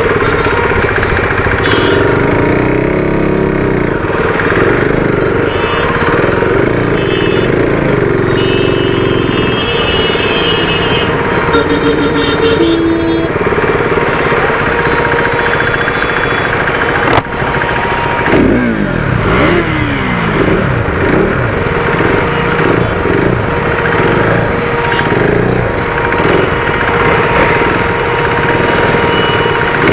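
Motorcycle engine running in a city traffic jam. A sharp click a little past halfway through, after which the engine's pitch swings up and down repeatedly as it revs and changes speed.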